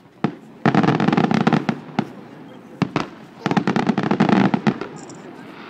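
Aerial fireworks exploding: a few single sharp bangs, and two stretches of rapid crackling pops, one about a second in and another past the three-second mark.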